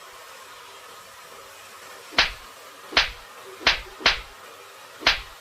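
Five sharp slaps or knocks, irregularly spaced, over a steady background hiss.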